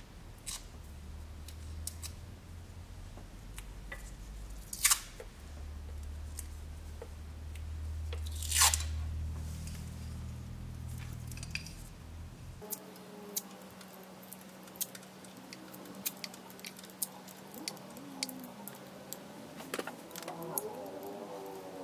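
Small handling noises from wires and connectors being worked by hand in a car's engine bay: scattered light clicks and crinkling, with two sharper snaps a few seconds apart. A low hum under the first half stops abruptly about halfway through.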